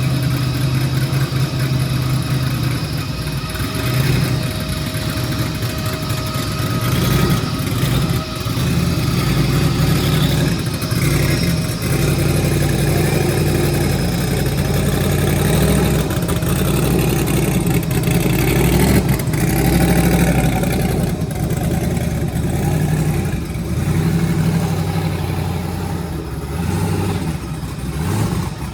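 A car engine running, loud and continuous, its pitch shifting now and then.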